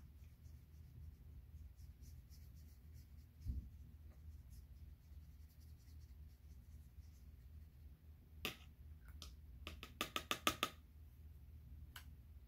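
Faint scratching of a paintbrush on watercolour paper over a low room hum, with a soft knock a few seconds in. Near the end comes a quick run of about six light clicking taps, then one more click.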